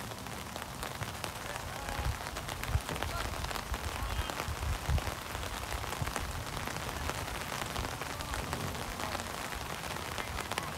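Rain falling: an even hiss dotted with many small ticks of drops, over a low rumble that swells about two to five seconds in.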